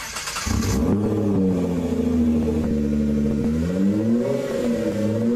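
A car engine revving, its pitch rising and falling several times over a steady low drone, after a short noisy burst in the first second.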